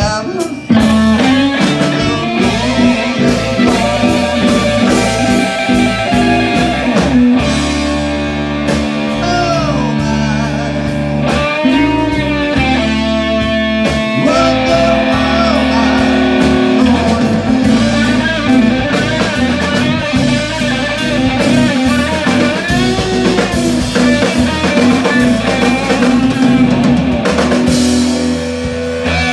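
Live blues-rock band playing an instrumental passage: an electric guitar lead with bent, sliding notes over electric bass and drum kit.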